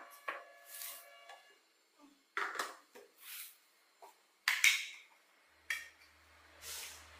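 Powdered-milk tin being handled: a few separate knocks, clinks and scrapes as the metal can's lid comes off and a plastic scoop digs into the powder. A faint low hum starts about five and a half seconds in.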